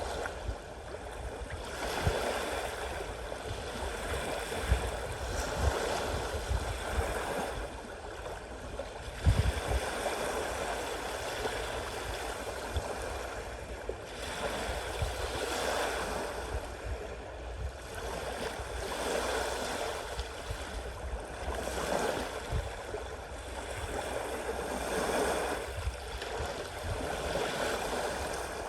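Sea waves washing in and drawing back, a rushing surf that swells and fades every few seconds.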